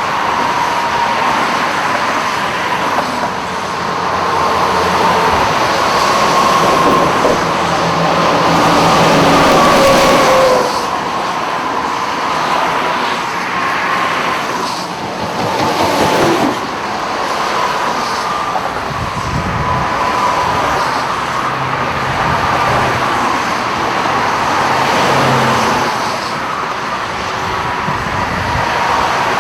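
Vehicles passing on a flooded freeway, their tyres going through water, in a continuous wash of traffic noise that swells as single vehicles go by, about ten seconds in and again near the middle. A steady, slightly wavering high tone runs underneath.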